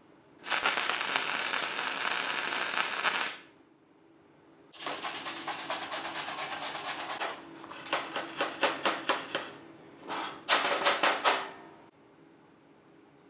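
Gasless flux-core welding arc from a modified Harbor Freight 90 amp welder, crackling and hissing steadily for about three seconds as a tack weld goes onto steel angle iron. Then a hand wire brush scrubs the steel, first in a fast continuous scrub, then in separate strokes about four a second, and last in a short quick burst.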